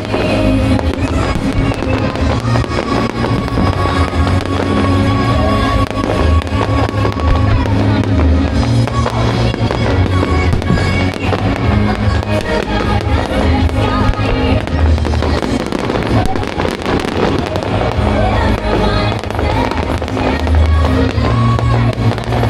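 Fireworks going off in rapid, continuous bangs over loud music with a pounding bass.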